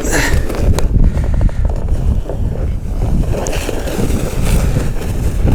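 Fierce gusty wind buffeting the microphone: a loud, uneven low rumble, with a few light knocks mixed in.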